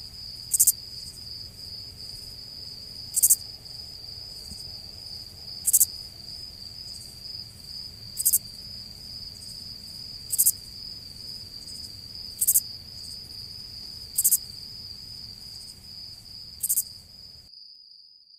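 Insects stridulating: a steady, unbroken high-pitched trill, with a louder, sharp high chirp about every two seconds. The sound fades out near the end.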